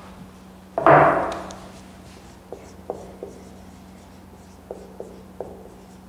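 Marker tip tapping and stroking on a whiteboard as letters are written: faint short ticks in two groups of three. About a second in, one loud sudden knock that dies away over about half a second, and a steady low hum underneath.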